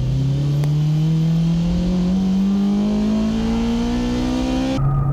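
Honda S2000's F20C high-revving four-cylinder accelerating hard through a gear, heard from inside the open cabin, its note climbing steadily in pitch. Near the end it gives way abruptly to a lower, steadier engine note.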